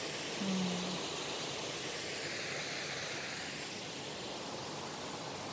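Steady rushing noise, even throughout, with a short low hum lasting about half a second near the start.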